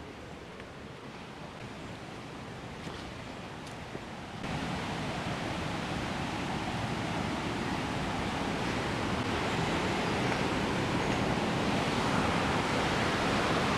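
Steady rush of fast-flowing river water, jumping suddenly louder about four seconds in and growing slowly louder after that.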